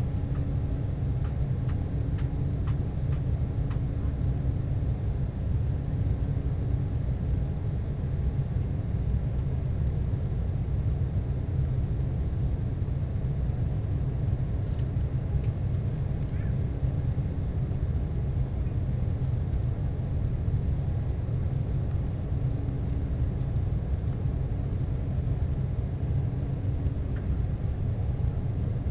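Cabin noise inside an Embraer 190 airliner climbing out after takeoff: a steady low rumble of airflow and its General Electric CF34-10E turbofan engines. A faint hum fades in the first several seconds and returns near the end.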